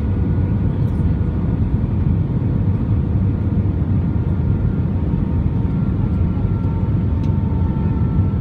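Airbus A320 cabin noise on descent: a steady low rumble of the engines and airflow over the wing, with faint whining engine tones that drift slightly lower in the second half.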